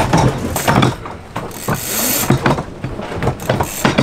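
A sailboat's cockpit winch clicking and knocking irregularly as a line is worked on it.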